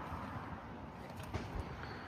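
Steady low outdoor background noise with a low rumble, and a couple of faint knocks about one and a half seconds in.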